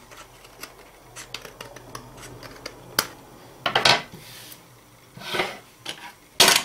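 Scissors trimming a folded piece of card in a few light snips and clicks. Then come louder scrapes and knocks as the scissors are laid on the tabletop and the card is handled, the loudest near the end.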